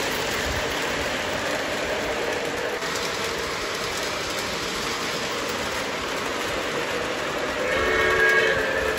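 Lionel O-gauge model trains rolling along three-rail track with a steady rumble. About eight seconds in, a model steam locomotive's sound-system whistle blows briefly, a chord of several tones.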